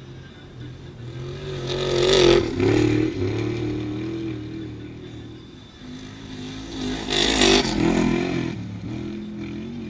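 Two off-road race vehicles speeding past at full throttle, one about two seconds in and the next about seven seconds in. Each engine's note swells and drops in pitch as it goes by.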